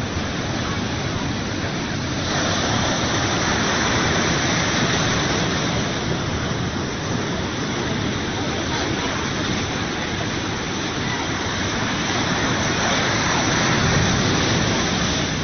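Rough, storm-driven sea surf breaking on the shore: a steady rush of churning water that gets louder about two seconds in.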